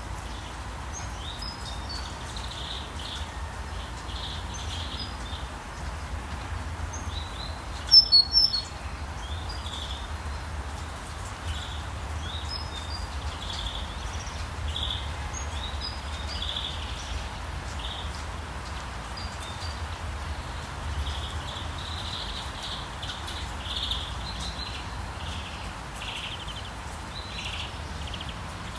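Forest birds chirping over and over above a steady hiss of rain, with a low rumble underneath. About eight seconds in, a loud burst of sharp, very high calls stands out.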